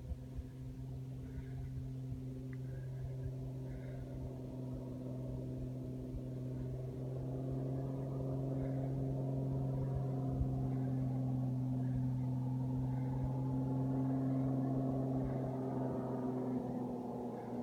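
Ski plane's piston engine and propeller running steadily with a low pitched drone, swelling somewhat through the middle and easing a little near the end.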